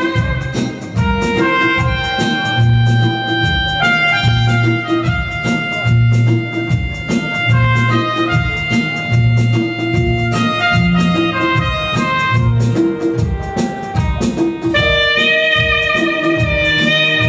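Saxophone playing a melody of held notes over a backing track with a steady drum beat and a pulsing bass line; the accompaniment grows fuller near the end.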